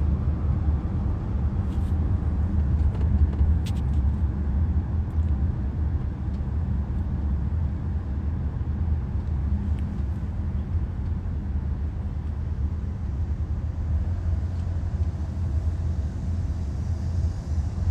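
Steady low rumble of a vehicle heard from inside its cabin, with a couple of faint clicks about two and four seconds in.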